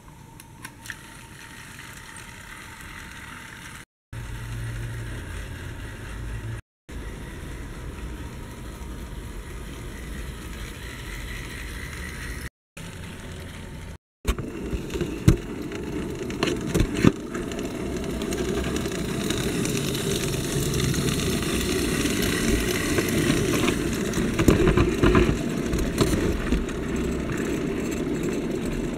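Mehano HO-scale model steam locomotive running on its track: the steady whir of its small electric motor and the rattle of wheels on the rails. It gets louder about halfway through, with a few sharp clicks, and the sound drops out briefly a few times.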